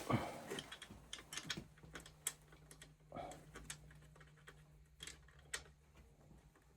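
Scattered light clicks and taps of hands and metal parts being handled while an oil burner's motor is refitted, with a faint steady hum in the background for a few seconds.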